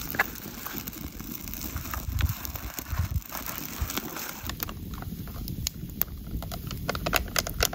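Small campfire of dry twigs and kindling crackling, with sharp snaps and pops over a steady rush of flame. The pops come thicker in the last few seconds.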